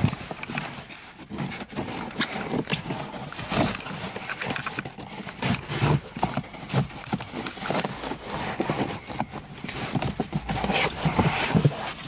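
A cabin air filter's frame scraping and knocking against its plastic housing as it is pushed into the guide grooves, with many short clicks and rustles of handling.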